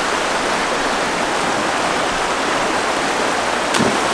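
Rain-swollen creek rushing through whitewater rapids over rocks, a steady loud rush of water, with one short thump near the end.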